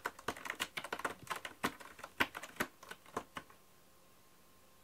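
Cat scratching a round corrugated-cardboard scratcher with its front claws: quick, uneven rasping strokes that stop about three and a half seconds in.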